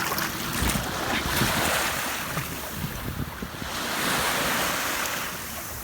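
Baltic Sea surf washing onto the beach, with wind buffeting the microphone. The noise of the breaking waves swells twice.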